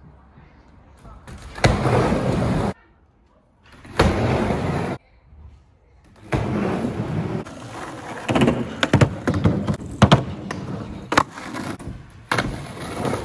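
Skateboard wheels rolling on a ramp, in short stretches that cut off abruptly. Then comes a longer stretch of rolling, broken by several sharp clacks of the board.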